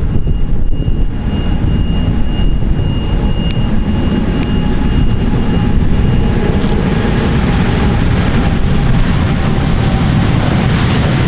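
Jet airliner engines getting louder in the second half, a broad hiss with a faint whine, over a steady low rumble of wind on the microphone.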